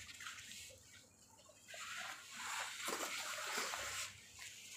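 Rustling and scraping of a stroller's fabric seat cover being pulled and tucked onto its frame, loudest for a couple of seconds from about two seconds in.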